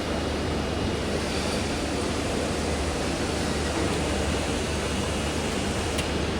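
Steady, even background din of an exhibition hall, with a faint high steady tone and a brief click about six seconds in.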